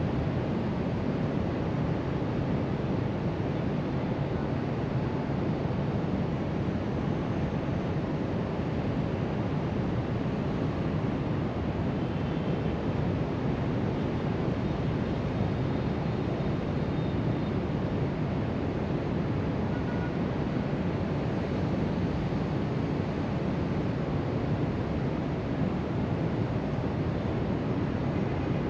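Steady wash of surf breaking along a sandy beach, heard from high above, blended with wind blowing across the rooftop and the microphone.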